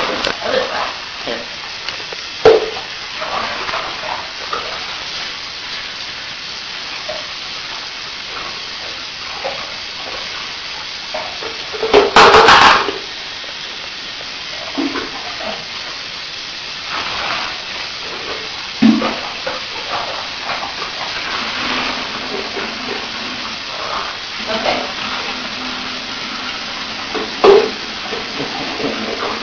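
Running water from a shower spraying onto a tiled floor during a dog's bath, a steady hiss with a few scattered knocks and splashes and one loud burst of noise about twelve seconds in.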